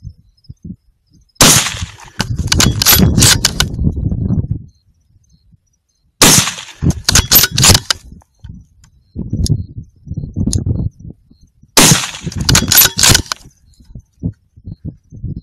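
Three rifle shots about five seconds apart, fired at a group of wild boar. Each is followed by a second or two of echoing crackle and rumble, with fainter knocks in between.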